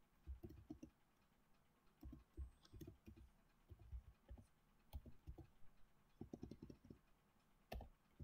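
Faint keystrokes on a computer keyboard, typed in short runs of clicks with pauses between them.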